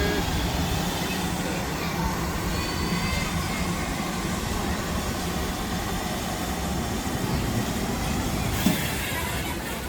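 Heritage railway locomotive running at a station, a steady low hum that fades after about seven seconds, with a single sharp knock near the end.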